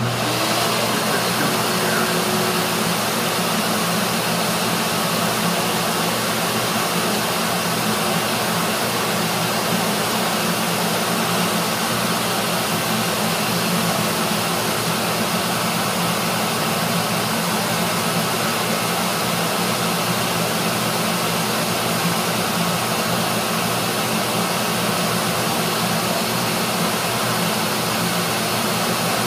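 Hobby heat gun of the kind made for shrinking RC-airplane covering, cranked on and running steadily: a loud, even rush of blown air over a low motor hum.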